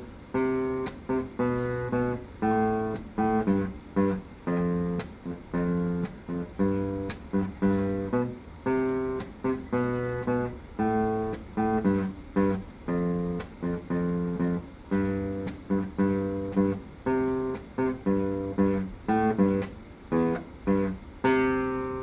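Acoustic guitar strumming chords in a steady rhythm. Near the end it lands on a final chord that is left to ring.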